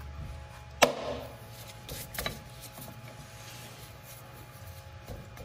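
Steel adjustable wrench clanking against the metal fittings of a skid-steer's hydraulic system: one sharp clank with a short ring about a second in, then a few lighter knocks.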